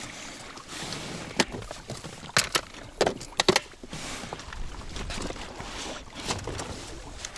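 Fishing tackle handled in an inflatable boat: a plastic lure box and spinning rod clatter, giving several sharp clicks and knocks between about one and three and a half seconds in, with rubbing and rustling around them.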